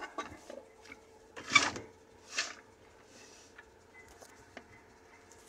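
Rubbing and knocking from a handheld camera being moved around, with two louder brief brushing sounds about one and a half and two and a half seconds in, over a faint steady hum.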